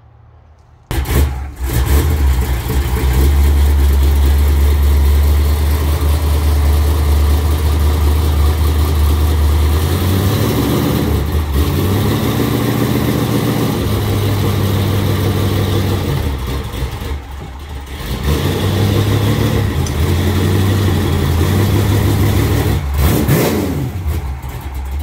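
Dodge Challenger's 440 big-block V8 starting about a second in and running loud and deep. From about ten seconds in, its engine speed rises and falls repeatedly as the car pulls a stuck engine and stand out of the dirt. There is a brief drop around seventeen seconds and another rev near the end.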